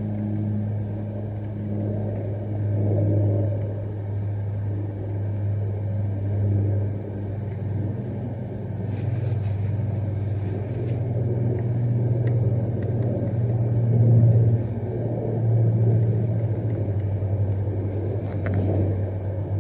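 A steady low rumble, with a few faint scrapes of a Bark River Bravo Crusader knife blade shaving thin curls off a dry stick.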